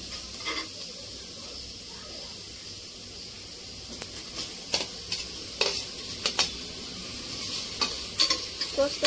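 Chopped capsicum sizzling in hot oil and spices in an aluminium pressure cooker pot as it is stirred with a steel ladle. From about four seconds in there is a run of sharp clicks and scrapes of the ladle against the pot over the steady sizzle.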